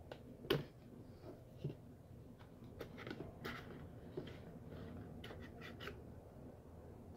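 Hands handling an earphone box and its packaging: scattered sharp clicks, light scrapes and rustles, the sharpest click about half a second in.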